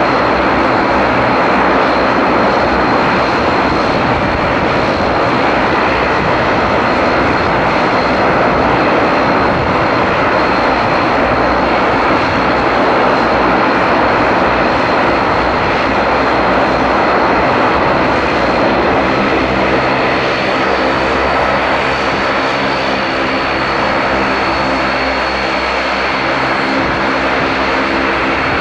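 A Bombardier Dash 8 twin turboprop's engines run loudly and steadily, with a high turbine whine over the propeller roar. About two-thirds of the way in, a steadier propeller drone with clear tones comes in as the aircraft turns to taxi.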